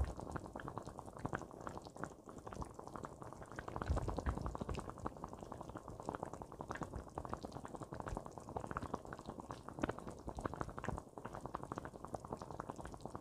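Sundubu-jjigae (spicy soft tofu stew) bubbling at a full boil in a black pot: a steady stream of small pops and bubbling.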